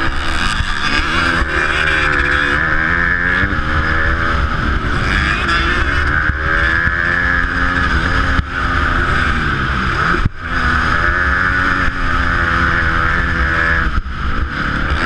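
Motocross dirt bike engine revving up and down as the rider accelerates and shifts through the gears, heard from a helmet-mounted camera with steady wind rush. The revs cut sharply twice, about eight and ten seconds in.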